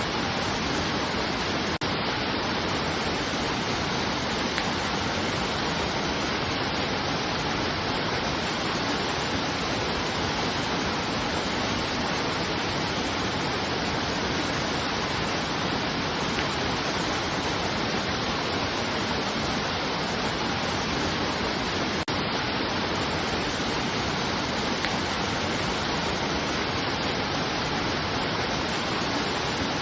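Steady, even rushing noise, spread evenly from deep to high pitches, with no changes or distinct events.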